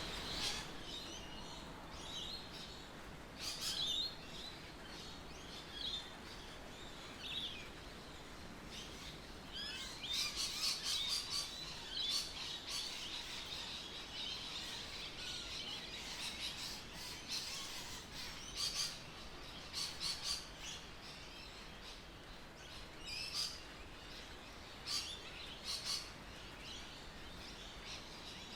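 Birds calling: short, high calls come in clusters every second or two, with a denser run of calls about ten seconds in, over a faint steady background.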